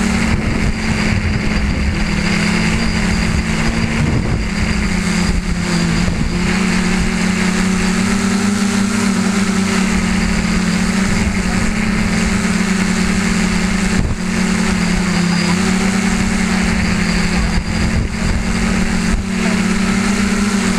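A tricopter's electric motors and propellers hum steadily, as heard from a camera mounted on the aircraft, over a broad rush of air. The pitch shifts slightly now and then as the throttle changes.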